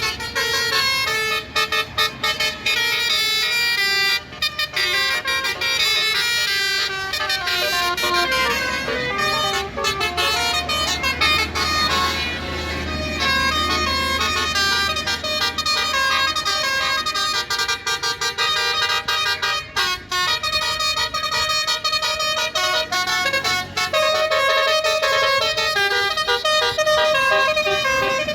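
Indonesian bus's basuri telolet horn, a set of roof-mounted air-horn trumpets, playing a song melody as a run of short and held notes that change pitch step by step. A low rumble joins in for a few seconds about halfway through.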